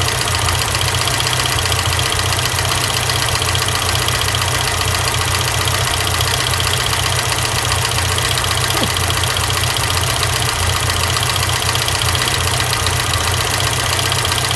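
Ford Fiesta XR2i engine idling steadily, with a fast, high-pitched ticking running over it. This is typical of the intermittent screeching the owner traces to the cooling fan, whose blades have a bit of movement on the spindle.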